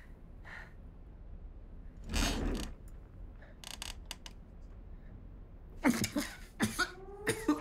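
A man breathing out heavily in a quiet room, with a few small clicks and some short sharp puffs of breath. Near the end a siren starts up, rising in pitch.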